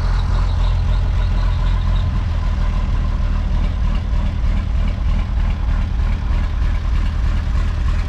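A truck's diesel engine idling steadily, freshly started after preheating the glow plugs, while air pressure builds in the brake circuits.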